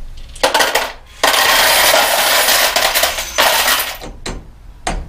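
Small parts clattering in a clear plastic box: a short rattle, then a dense, continuous clatter of many small pieces lasting about two seconds, and two single knocks near the end.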